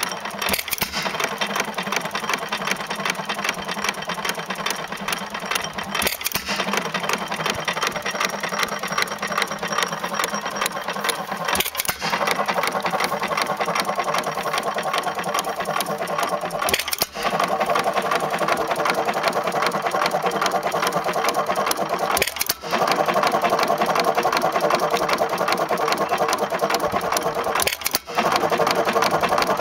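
A 2 HP Sparta Economy single-cylinder hit-and-miss gas engine running in its as-found original condition, with a fast, steady beat and brief breaks about every five to six seconds.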